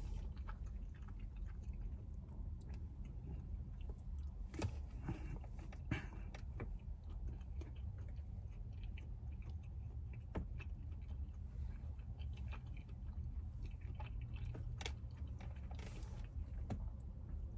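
Close chewing and mouth sounds of a person eating a breaded buffalo wing, with scattered short clicks and crunches of the bites. A steady low hum runs underneath.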